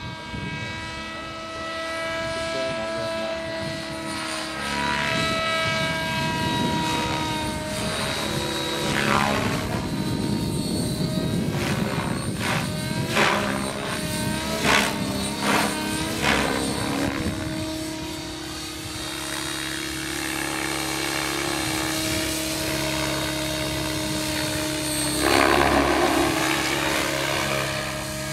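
Electric Blade 700X RC helicopter flying 3D aerobatics: a steady whine from motor and rotor, with the pitch gliding up and down as it manoeuvres. Short loud surges of rotor noise come several times in quick succession midway, then one bigger surge near the end.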